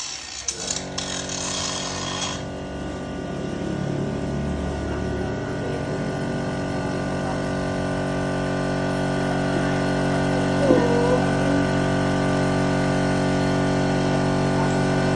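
Angle grinder starting up and running steadily while grinding iron, with a harsh hiss over the first couple of seconds and a steady motor whine that grows slowly louder.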